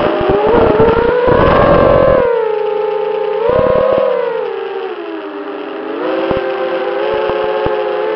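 FPV racing quadcopter's electric motors and propellers whining, the pitch gliding up and down with the throttle as it banks and dives. Two loud gusts of rushing wind noise come about a second in and again around three and a half seconds.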